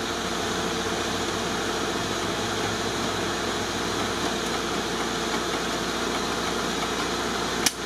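A vehicle engine idling steadily, with a short click near the end.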